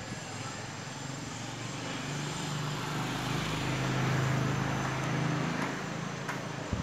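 A motor vehicle passing by. Its engine hum and road noise swell to a peak about four seconds in, then fade.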